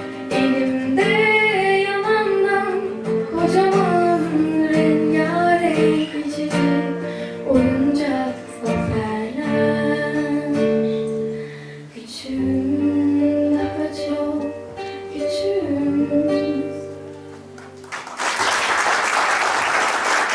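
Female voice singing a song with acoustic guitar accompaniment. The song ends about eighteen seconds in, and the audience breaks into applause.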